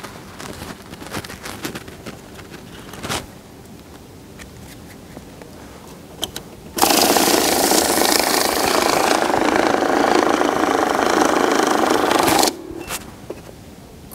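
Electric banknote counting machine running, feeding a stack of bills through its rollers with a dense whirring rustle for about five and a half seconds; it starts and stops abruptly. A few light clicks come before it.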